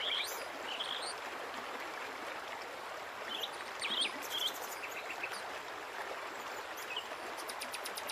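Outdoor ambience: a steady hiss of background noise with short bird chirps a few times.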